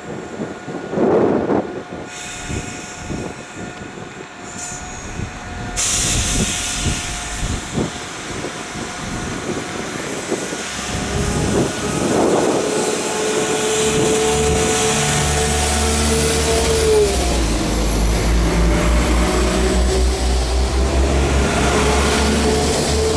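West Midlands Railway Class 172 Turbostar diesel multiple unit pulling away from the platform and passing close by. There is a burst of air hiss about six seconds in. Then the engine note climbs over a deepening diesel rumble, dips about two-thirds of the way through as the transmission changes gear, and climbs again.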